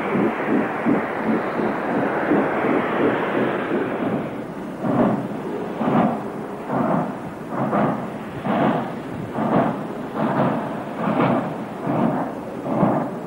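NSWGR steam locomotive exhaust. It starts with fast, closely spaced chuffs as a locomotive runs past. About four seconds in, it changes to a locomotive working hard from a start, with heavy separate exhaust beats about one a second, gradually quickening.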